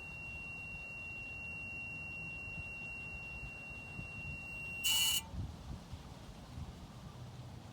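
A steady, high-pitched metallic whine from under a Ford Focus, the noise the owner describes as grinding, over a low rumble. About five seconds in a short, loud harsh burst cuts it off, and only the low rumble continues.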